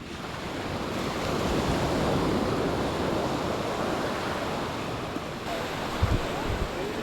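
Surf on the shore: waves breaking and washing up, the noise building over the first couple of seconds and then easing off. Wind buffets the microphone a couple of times near the end.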